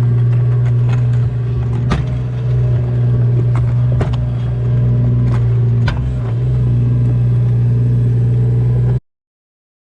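Kubota KX018 mini excavator's three-cylinder diesel engine running steadily, with a few sharp metallic clanks along the way. The sound cuts off abruptly near the end.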